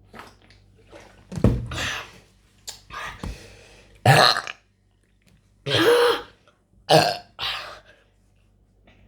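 A person burping loudly several times in a row, after gulping down a big bottle of carbonated cola.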